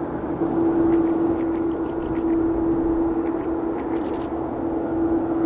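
Jet engines of a Boeing 787-8 running, a steady drone with one held tone through it.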